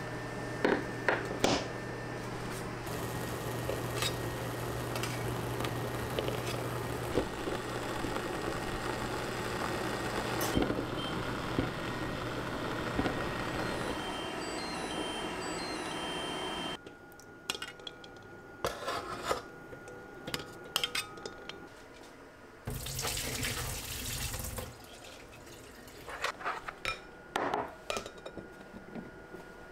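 Eggs boiling in a stainless pot on an induction cooktop, with a steady low hum and a hiss through roughly the first half and a few clicks near the start. Then it goes quieter: water runs from the sink tap for about two seconds, with scattered clinks of eggs and dishes.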